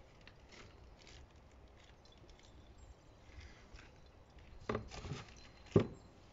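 Hands handling a diesel fuel filter: faint rustling, then a few soft knocks and one sharp plastic click near the end.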